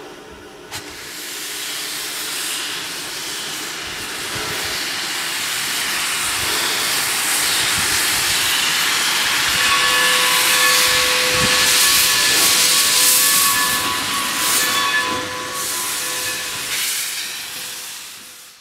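Steam locomotive hissing loudly as it vents steam, the hiss building up over the first few seconds. Through the second half a steady tone sounds over the hiss, and it all fades out at the end.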